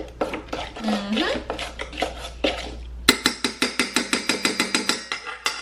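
A utensil stirring cream cheese filling in a bowl, clicking against the bowl's side: irregular strokes at first, then about three seconds in a steady, rapid beat of about six strokes a second.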